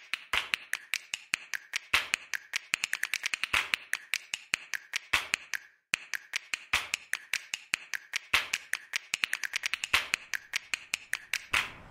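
A fast, irregular run of sharp clicks or taps, several a second, with a pause of about a second halfway through.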